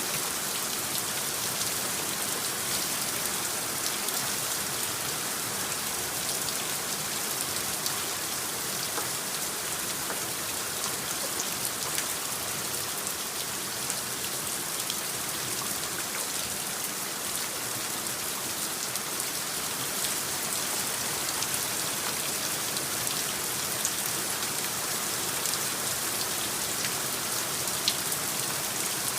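Steady rain: an even hiss of falling rain with many small, sharp drop ticks scattered through it.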